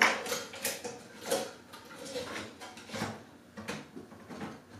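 LED recessed retrofit light being worked up into a ceiling can by hand: a string of irregular clicks and scrapes as the trim rubs and catches against the housing, the loudest right at the start.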